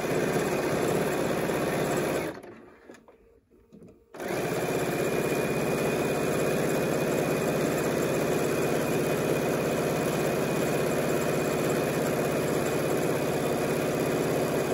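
Bernina B 790 Plus electronic sewing machine stitching a folded fabric tie strip, running steadily; it stops about two seconds in, is silent for about two seconds, then starts again and runs on.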